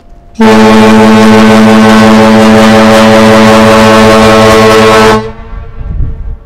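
The MV Puyallup's ship's whistle sounds one long, steady blast of about five seconds, starting suddenly and cutting off cleanly. It is one prolonged blast in fog, the fog signal of a power-driven vessel under way.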